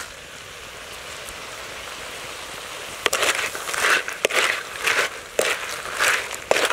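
Crab curry sizzling in a clay pot. About three seconds in, a wooden spatula starts stirring it, scraping and knocking against the clay roughly once a second.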